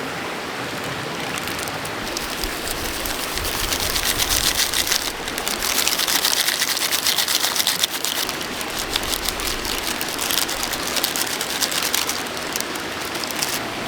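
Rain falling, a dense steady patter that grows heavier about four seconds in.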